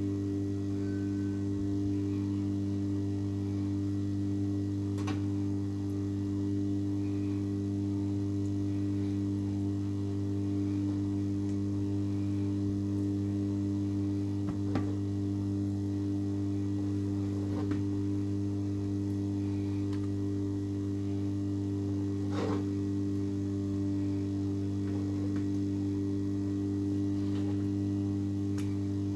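Steady electrical mains hum made of several even low tones, unchanging throughout, with a few faint light taps scattered through it.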